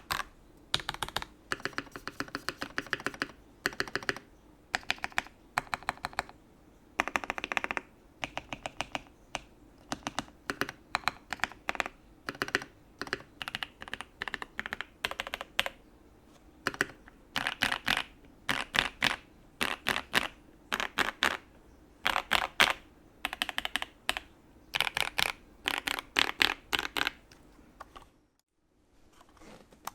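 Typing on a custom U80-A SEQ2 mechanical keyboard with a brass plate and switches lubed with Tribosys 3204 and fitted with switch films: runs of rapid keystrokes with short pauses between them. The typing stops about two seconds before the end.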